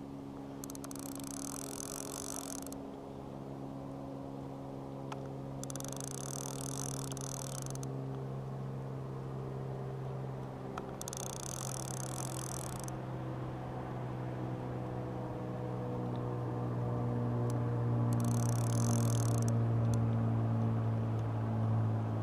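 A fishing reel being cranked in four short spells, each a high whirring of a second or two, about every five seconds, as a lure is retrieved. Under it runs a steady low hum that grows louder near the end.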